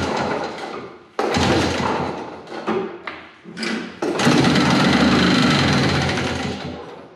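1970 Evinrude Skeeter 440 snowmobile's opposed-twin two-stroke engine being pull-started on fuel fed in by hand. It fires in short bursts on the first pulls. About four seconds in it catches and runs for about two seconds, then fades out and dies near the end.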